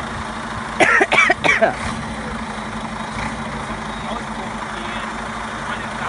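IVECO Stralis 560's Cursor 13 straight-six diesel idling with a steady low hum. About a second in, a person's voice breaks in with a short burst of coughing or laughing sounds, the loudest thing heard.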